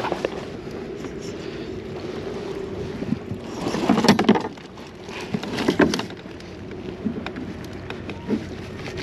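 Handling noise on a plastic kayak as a large fish is lowered into the hatch cooler: rustling, scraping and knocks against the hull in two bursts, about three and a half and about five and a half seconds in, the first the louder, over a faint steady hum.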